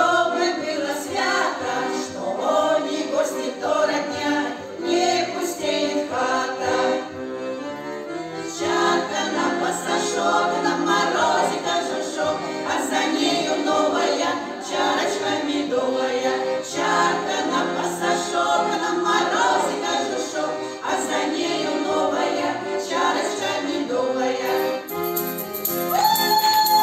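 A choir singing with instrumental accompaniment, with a long held note near the end.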